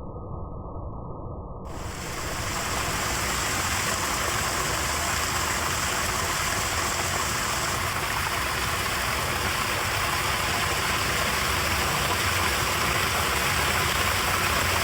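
Rainwater rushing into a street storm drain, a steady, even rush of falling water. It sounds muffled at first and opens up to a fuller, louder rush about two seconds in.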